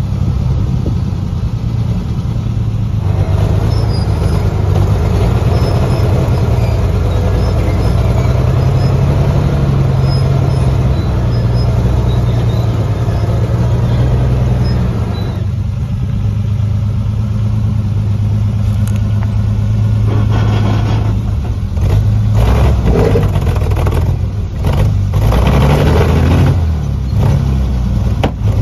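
1956 International R200 wrecker's six-cylinder engine with true dual exhaust, running under load while towing another truck; the engine note rises and falls. A few faint bird chirps in the first half.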